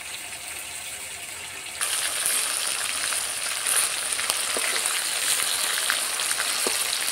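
Marinated chicken pieces frying in hot oil in a kadai on high heat: a steady dense sizzle that gets markedly louder about two seconds in. A few light clicks of the metal spatula against the pan come in the second half.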